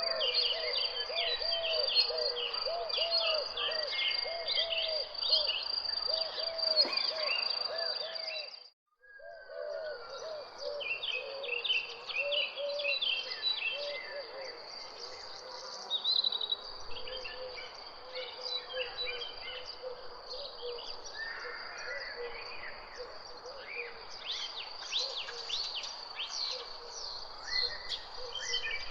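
Birds chirping and singing over a steady high insect trill, with a lower call repeating every second or so through the first few seconds. About nine seconds in, all sound cuts out for a moment and then resumes.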